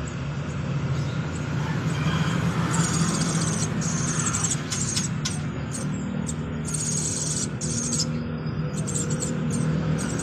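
Orange-headed thrush (anis merah) chicks begging with high, thin, squeaky calls that come in short clusters several times, over a steady low hum.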